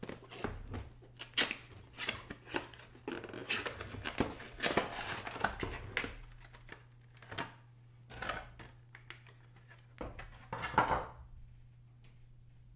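Plastic and cardboard packaging handled and opened: a clear plastic blister tray and a paper box rustling, crinkling and clicking in short irregular bursts, busiest in the middle, with a louder crinkle about ten and a half seconds in.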